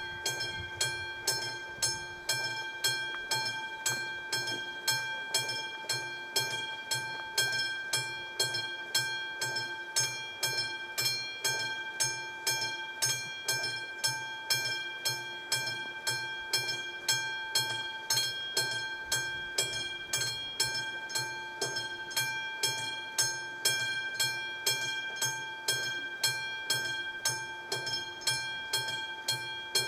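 Classic mechanical bell of an AŽD 71 level-crossing warning signal ringing steadily at about two strikes a second, each strike leaving a ringing tone: the crossing warning is active, signalling that a train is approaching or passing.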